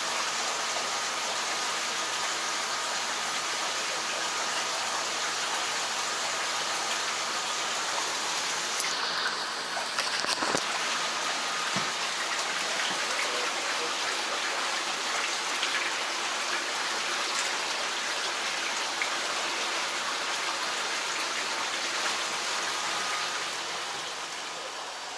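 Steady rush of running and splashing water from aquarium tank filtration, with a few sharp knocks about ten seconds in; the rushing eases shortly before the end.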